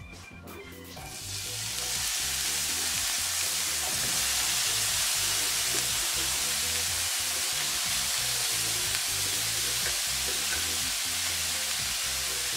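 Chopped mushrooms sizzling as they fry in hot olive oil in a frying pan over a high gas flame. The sizzle starts about a second in, as they go into the oil, and then holds steady.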